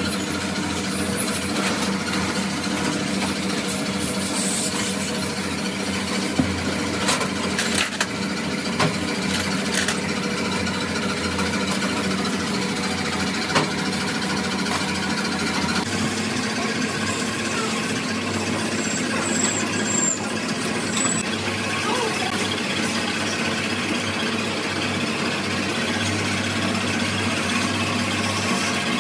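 Machinery running steadily, with scattered clicks and knocks; the hum shifts slightly about sixteen seconds in.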